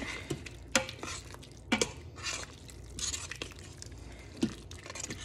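Macaroni and cheese being stirred by hand in an Instant Pot's metal inner pot: a utensil scraping through the pasta and against the pot, with three sharper knocks on the pot wall.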